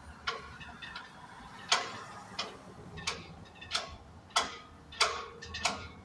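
Steady ticking of a vehicle's turn-signal or hazard-light flasher inside the cab, about one and a half sharp ticks a second.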